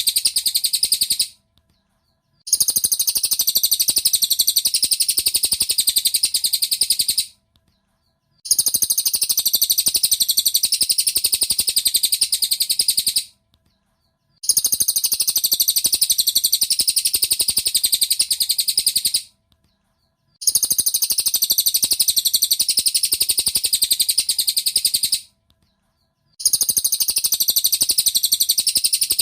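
Cililin bird masteran recording: fast, high-pitched twittering in phrases of about five seconds, each followed by a pause of about a second, repeating evenly five times.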